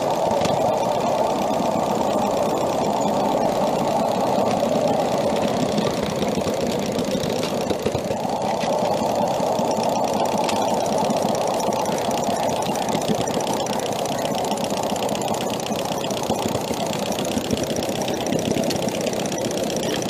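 A 2-inch-scale live-steam Shay geared locomotive running under steam. Its exhaust and drive keep up a fast, even mechanical beat.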